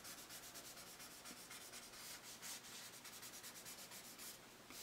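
Faint, quick back-and-forth shading strokes rubbing over sketchbook paper, laying down a light grey graphite gradient.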